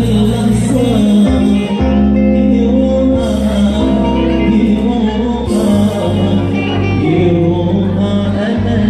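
Live band playing an Arabic popular song through a PA: a male singer over keyboard with sustained bass notes that shift in steps, and hand drums.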